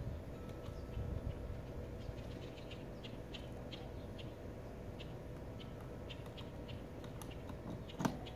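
Faint scattered clicks and ticks of a mic cable and stand being handled while a busking rig is set up, over a steady low hum. One sharp knock comes about eight seconds in as a hand reaches the small amplifier.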